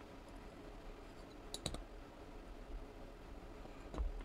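Light clicks of small metal knife parts being handled while fitting the button and spring back into a ProTech Mordax automatic knife: a quick double click about a second and a half in, and another click near the end.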